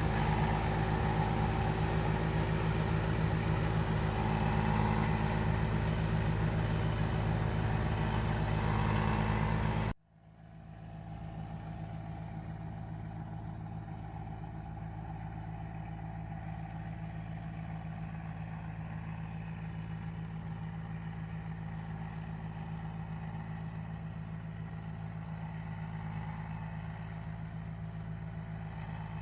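Rice combine harvester's engine running steadily, a constant mechanical hum. About ten seconds in the sound cuts off abruptly and comes back quieter, the same steady engine hum continuing.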